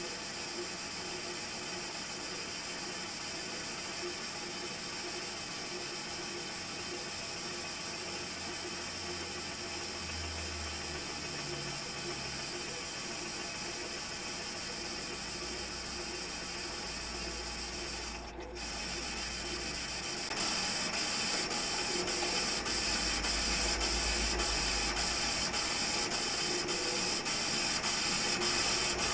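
Metal lathe running slowly while its tool takes a fine cut on a hot-rolled steel flywheel blank, a steady mechanical running. After a brief dip about two-thirds of the way in, the sound gets louder with a regular ticking about twice a second.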